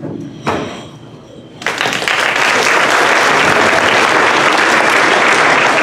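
Audience applauding in a school auditorium. The clapping breaks out about a second and a half in and holds loud and steady, with a brief sharp sound just before it.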